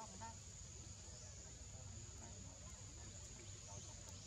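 Quiet forest ambience: a steady, high-pitched insect drone over a low rumble.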